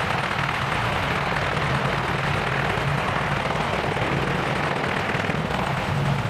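AH-64 Apache attack helicopter running close by, its rotor beating rapidly and steadily over the noise of its twin turboshaft engines.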